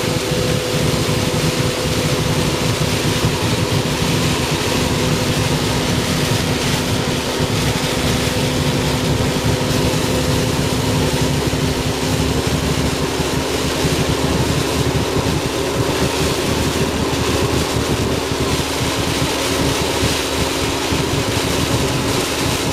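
Typhoon storm noise: heavy rain and strong wind making a steady, even rushing. Under it runs a steady low hum.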